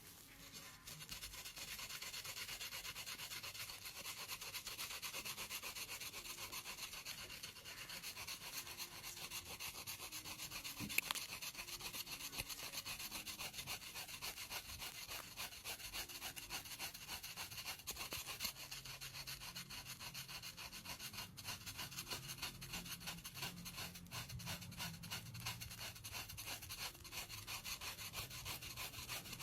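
A pedicure blade scraping the skin of a foot in many quick, short strokes, with one sharper click about eleven seconds in.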